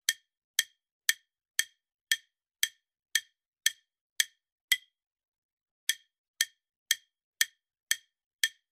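Quiz countdown-timer sound effect: sharp clock-like ticks, about two a second, with a break of about a second just past the middle, as the timer counts down to zero.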